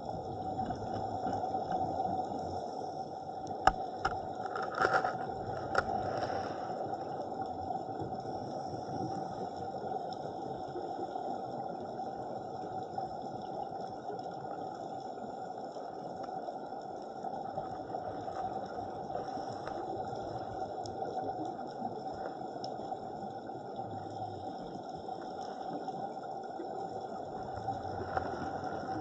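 Underwater ambience on a night scuba dive: a steady watery hiss with a constant hum, and a few short, louder bursts of bubbles about four to six seconds in.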